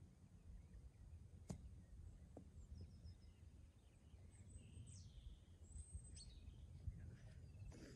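Faint birds chirping over a low steady rumble, with one sharp faint click about a second and a half in: the distant strike of a golf club on the ball for a short approach shot.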